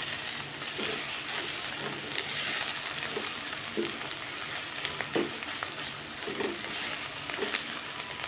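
Minced meat and spice masala sizzling as it is fried in a metal pot, stirred with a wooden spatula that scrapes and knocks against the pot every second or so. This is the bhuna stage, frying the masala down.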